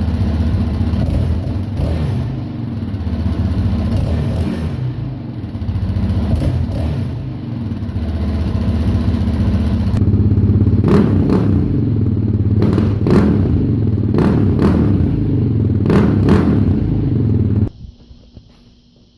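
Yamaha Raptor 700 ATV's single-cylinder engine running through its exhaust, with the throttle blipped now and then; it gets louder and sharper about ten seconds in. The sound cuts off abruptly near the end.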